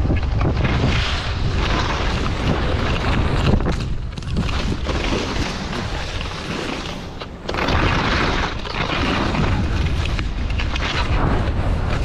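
Wind buffeting the microphone of a skier's body-worn camera during a downhill run, a heavy low rumble over the hiss of skis sliding and scraping on the snow. It dips briefly about four and seven seconds in.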